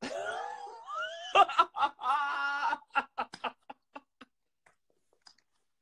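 A man laughing. A drawn-out, rising-and-falling laugh is followed by a string of short 'ha-ha' pulses, about four a second, that die away after about four seconds.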